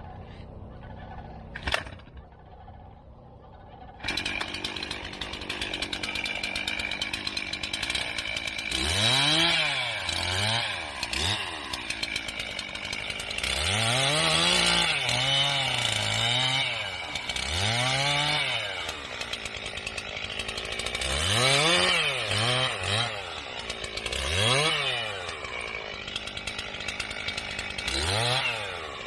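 Two-stroke chainsaw cutting through thick Mexican sunflower stalks. It comes in about four seconds in, then revs up and drops back again and again, a dozen or so rising-and-falling pitch sweeps.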